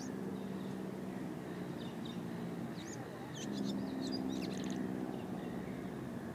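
Steady low engine drone that grows louder about three and a half seconds in, with a cluster of short, high bird chirps between about two and five seconds in.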